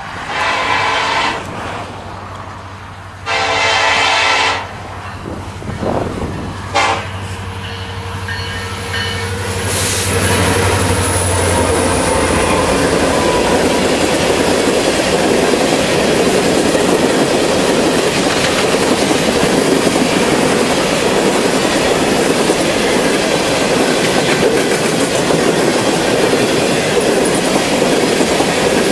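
BNSF diesel freight locomotive sounding its air horn, two long blasts and then two short ones, over the low drone of its engine as it passes. About ten seconds in, a brief high squeal sounds, and then the steady rolling rumble and clickety-clack of coal hopper cars going by takes over.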